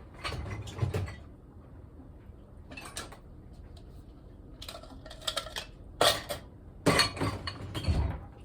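Kitchen dishes, pots and utensils clattering and clinking in several short bursts as they are handled, the loudest knocks in the second half.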